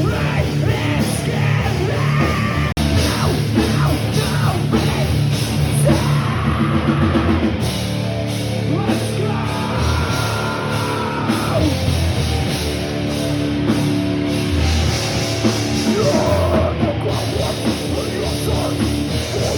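A rock band playing live, loud heavy punk-metal with drums and yelled vocals.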